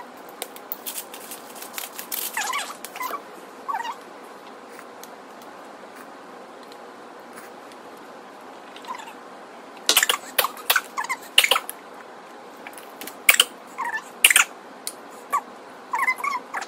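A hand-twisted seasoning grinder cranking over a bowl for the first few seconds. Later come a spoon clinking and scraping against a ceramic bowl and small mouth and slurping noises of someone eating congee.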